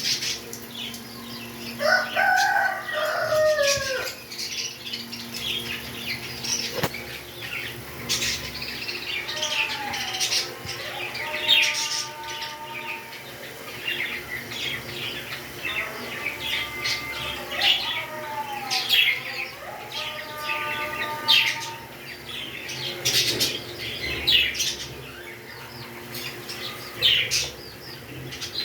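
Pet birds chirping constantly in quick, sharp, high notes, with a few longer whistled calls that glide up and down, the first about two seconds in and two more later.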